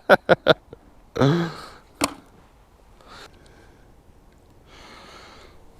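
A man's short burst of laughter, then a single sharp click and faint breathing.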